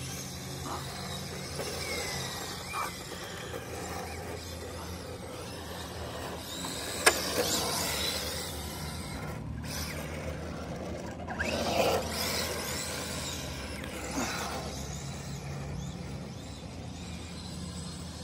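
Electric motor of an HPI Sprint 2 Drift radio-controlled car whining up and down in pitch as it accelerates and slides, with its tyres scrubbing on concrete. A sharp click about seven seconds in, and a louder stretch around eleven to twelve seconds in.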